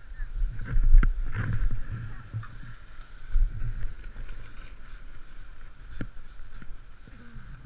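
Skis scraping and sliding on packed snow, with low rumbling buffeting on the camera microphone and a couple of sharp clicks, about one second in and again near six seconds.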